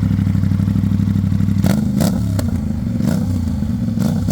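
Aprilia RS457's 457 cc parallel-twin engine through a GPR Ghost Inox underbelly exhaust, idling with a steady pulse. From about one and a half seconds in, the note wavers and several sharp cracks and clicks come at irregular intervals.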